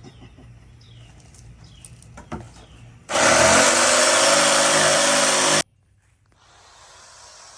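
Power tool running loudly for about two and a half seconds, spinning up at the start and cutting off abruptly.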